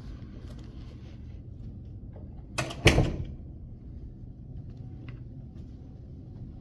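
Two loud knocks in quick succession about three seconds in, the second the louder with a short ring after it, over a steady low hum.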